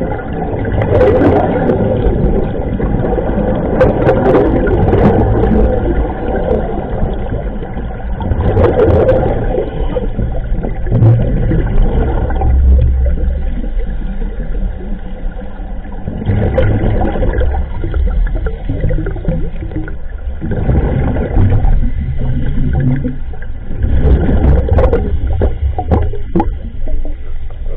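Scuba diver's breathing heard underwater through the camera housing: the regulator's inhale and the bubbly rush of exhaled air, about one breath every four seconds, over a steady low rumble.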